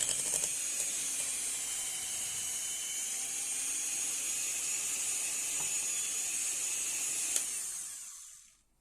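Electric mixer running steadily at its lowest speed, beating cream cheese as sugar is added: an even, high whir that fades out near the end.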